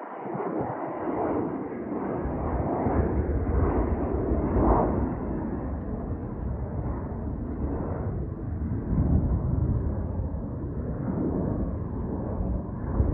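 Jet airliner climbing out after takeoff, its engines heard as a broad, uneven rumble.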